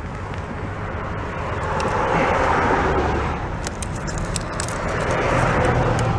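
A strong blast of rushing air blowing dirt and dust out from under a rusty mower deck. It swells twice, with a steady low motor drone underneath.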